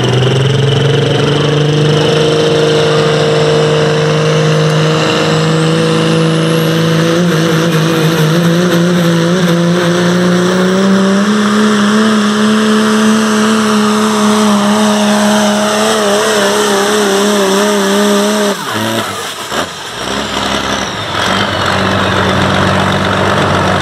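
Pro stock Dodge Ram diesel pickup pulling a sled at full throttle, its engine note climbing steadily over the first dozen seconds with a high turbocharger whistle rising above it. About 18 seconds in the engine drops away suddenly as the pull ends and the throttle is released, and the turbo whistle falls as it spools down.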